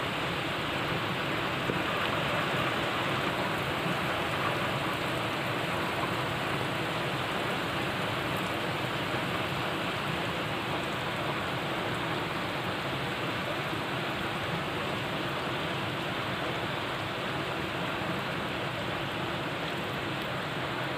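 Steady, even rainfall with no breaks or single loud events.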